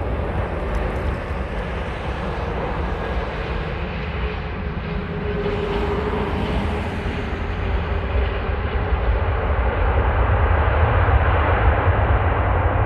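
Airbus A380's four Rolls-Royce Trent 900 turbofans rumbling as the airliner touches down and rolls out, a steady jet roar with a deep low rumble. It grows louder in the second half as reverse thrust builds on the rollout.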